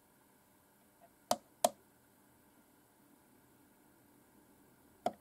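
Plastic push buttons on an LED alarm clock radio clicking as they are pressed: two sharp clicks close together, then one more near the end.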